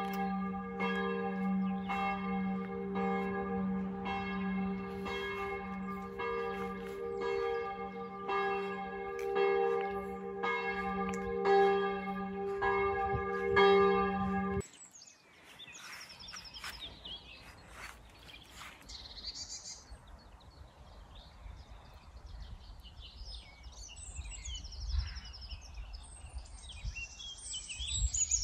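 A church bell tolling steadily, about one stroke a second, each stroke ringing on into the next; it cuts off abruptly about halfway through. Then small birds chirping and calling over a faint low rumble.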